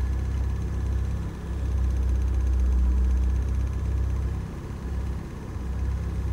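Freshly rebuilt Triumph Spitfire 1500 four-cylinder engine running on a test stand at about 900 to 1,000 rpm, very smooth. Its low rumble eases briefly about a second in and again for about a second later on.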